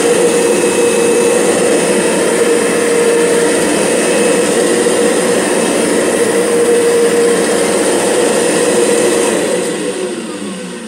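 Kirby G6 vacuum cleaner motor running steadily with the carpet fluffer head's belt disengaged in neutral, making a noise the owner finds strange. About nine and a half seconds in it is switched off and its pitch falls as it winds down.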